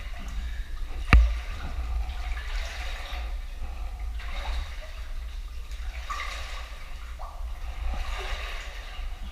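Water splashing and sloshing around a caver swimming through a flooded cave passage, with one sharp knock about a second in.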